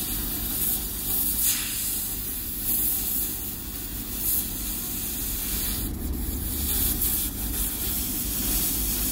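Hot air rework station's gun blowing at full air volume: a steady hiss that swells now and then, as it melts and blows solder off a component's pins.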